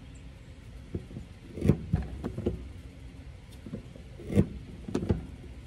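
Hollow leather punch in a drill press being pushed down through a leather sheet, several times: a run of knocks and clunks from the press and punch hitting the board below, the loudest two about a second and a half in and a little past four seconds, over a low hum.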